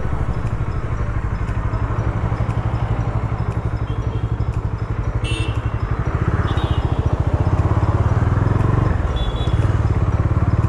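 Motorcycle engine running with a rapid, even exhaust pulse as the bike rides along, getting louder about six seconds in and easing briefly near the end. A short high-pitched chirp sounds about five seconds in.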